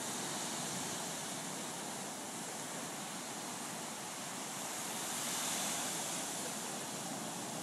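Ocean surf breaking and washing up a sandy beach: a steady rush that swells a little about five seconds in.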